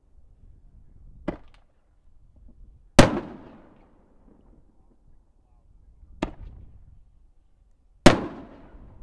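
5-inch Nishiki willow canister firework shells going off, loud. Twice a lighter, sharp bang is followed about two seconds later by a much louder boom that rumbles away for a second or more; the two pairs come about five seconds apart.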